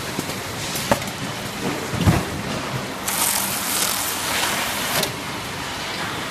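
Carton packing-line machinery running with a steady noise, a few sharp knocks, and a hissing rush from about three to five seconds in.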